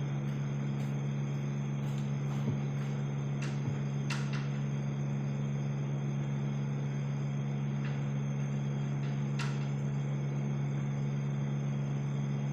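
A steady low machine hum throughout, with a couple of faint knocks of a knife cutting meat on a wooden board, about two and a half seconds in and again a second later, and a few light clicks.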